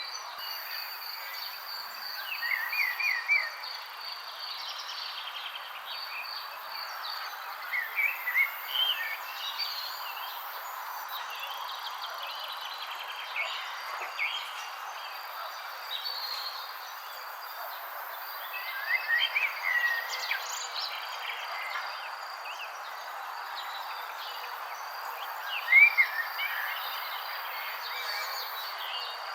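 Songbirds chirping in short clusters of quick notes every few seconds, over a steady high insect trill and a constant background hiss.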